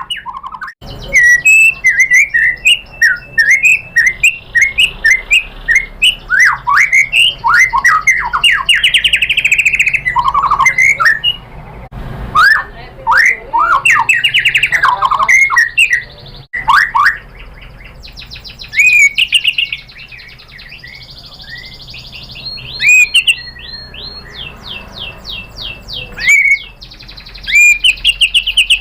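White-rumped shama singing a loud, varied song: fast runs of whistled notes, sweeps and trills, broken by a few brief pauses, with a quick series of short rising notes near the end.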